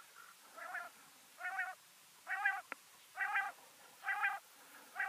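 Quail calling: a run of short warbling calls, each about a third of a second long and a little under a second apart. A single sharp click comes about halfway through.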